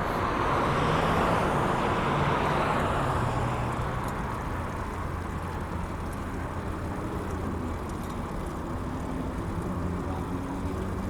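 Road traffic: a vehicle passes close by in the first few seconds with a rising and falling tyre and engine rush, then steady traffic noise with a low engine hum, and another engine revving up near the end.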